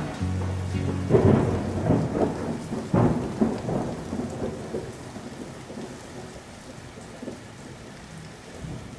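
Thunderstorm sound effect: steady rain with rolling thunder, the loudest claps about a second and three seconds in, then slowly fading away.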